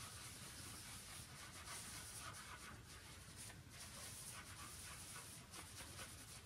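Faint rubbing of a cloth buffing wax polish into a wooden tray, soft irregular scratchy strokes.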